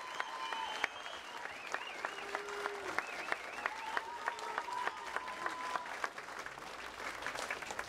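A large crowd applauding, dense steady clapping with long whistles and calls over it, an enthusiastic welcome.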